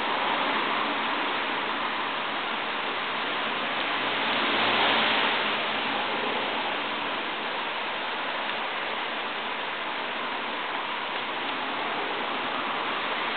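Steady rain falling on a wet tiled patio, swelling briefly a little after four seconds in.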